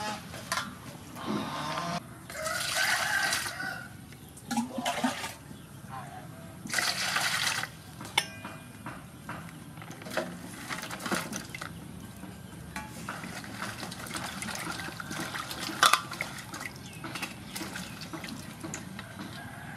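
Hands washing vegetables in water in an aluminium basin: repeated bursts of swishing and splashing as a carrot, an onion and green onions are rubbed and rinsed. A single sharp knock, the loudest sound, comes about three-quarters of the way in.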